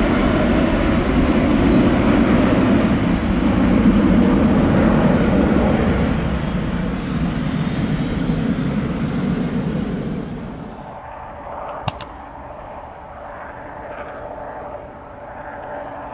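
Jet airliner's engines passing close by, loud at first, then fading away over about ten seconds. A sharp click about twelve seconds in.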